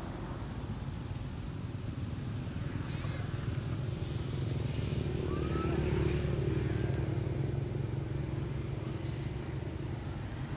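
Low engine rumble of a motor vehicle running nearby, swelling to its loudest about six seconds in, then easing off. A couple of faint, short, high squeaks come through the rumble.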